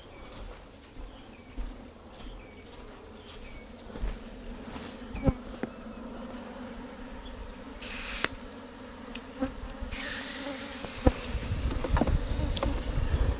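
A swarm of bees buzzing steadily around a disturbed hive as insecticide foggers are set off in it. Several sharp knocks and a hiss about eight seconds in and again from about ten seconds sound over the buzzing.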